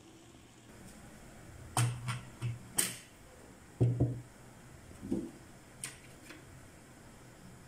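Tableware being set out on a wooden desk: a string of dull knocks and sharp clinks as a drinking glass is put down and a fork and spoon are handled over a ceramic plate, over a faint steady hum.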